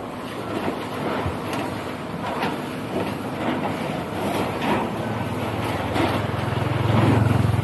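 Motorcycle engine running close by from about five seconds in, a low steady hum that is loudest near the end, over a noisy background with scattered knocks.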